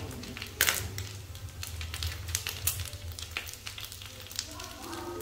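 Small dried fish sizzling in hot oil in a frying pan, with scattered crackles and pops, one louder pop about a second in, as chopsticks stir them. A steady low hum runs underneath.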